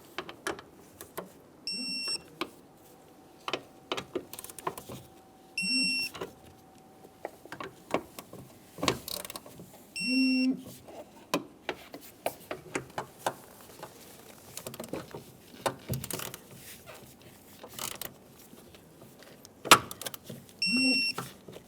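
Door hinge bolts being tightened and torqued to 22 foot-pounds with hand tools: scattered ratchet and metal clicks, with four short electronic beeps, three in the first ten seconds and one near the end, typical of a digital torque wrench signalling that it has reached the set torque.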